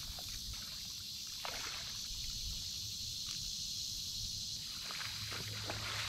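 Shallow lake water splashing and sloshing as a person wades in, releases a carp and wades back out. There are a few splashes about a second and a half in and again around three seconds, and they come thicker from about five seconds in.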